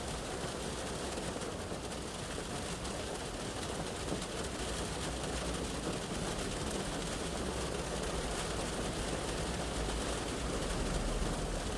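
Shower rain falling on a car's roof and glass, heard from inside the cabin, with traffic on the road running past as a steady rumble. The low rumble grows louder near the end, as a vehicle passes close by.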